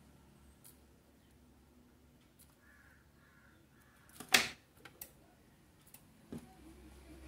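Mostly quiet workbench with a few faint clicks as multimeter test probes are touched to the legs of a removed power transistor, and one short, loud, sharp sound a little past the middle.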